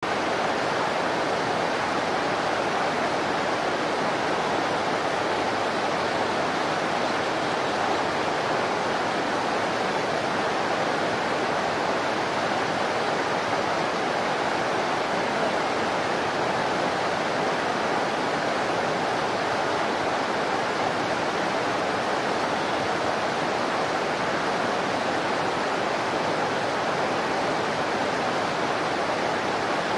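Steady rush of a fast-flowing river over rocks, an even roar of white water that does not change.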